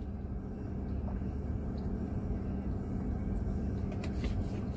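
Car engine idling, heard from inside the cabin as a steady low rumble with a constant hum.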